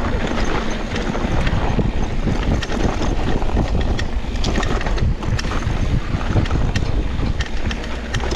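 Wind buffeting the microphone of a riding downhill mountain bike, over a continuous rumble of tyres on a dirt trail. Many sharp clicks and rattles come from the bike jolting over the rough ground.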